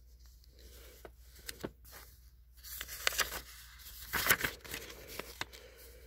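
Paper pages of an instruction manual rustling as they are turned by hand, loudest in two bursts about three and four seconds in.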